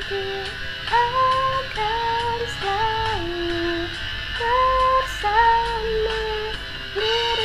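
A young woman singing a slow pop love-song melody in short phrases of held notes that step up and down, over a backing track with light high ticks.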